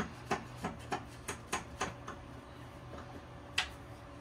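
Sharp clicks and knocks of metal parts being worked loose by hand in a car's engine bay, about three a second for two seconds, then a single louder click about three and a half seconds in.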